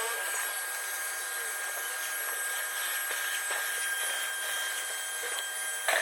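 Steady hiss with scattered faint clicks and a sharper click near the end, from hand-tool work on a car's clutch pedal assembly.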